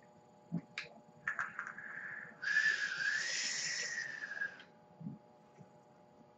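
A long draw on a triple-coil, sub-ohm IGO W14 rebuildable atomizer: a couple of light clicks, then air hissing through the atomizer's air slots and over the firing coils with a wavering whistle, loudest for about two seconds in the middle, followed by a faint puff as the vapor is exhaled.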